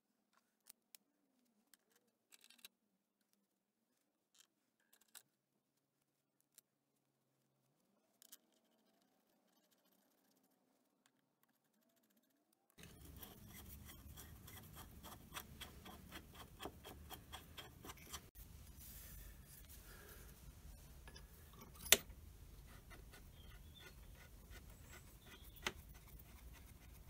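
Small metal parts and hand tools being handled on a lathe apron: a few faint, sparse clicks in near silence, then steady low room noise with small metallic scrapes and clicks. One sharp click about two-thirds of the way through is the loudest sound.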